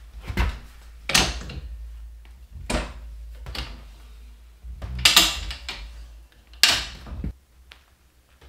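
Metal knocks and clatter from the table saw's folding rolling stand as its legs are opened and set to stand the saw up: a series of sharp clunks, the loudest about a second in, at five seconds and at six and a half seconds, then it goes quiet.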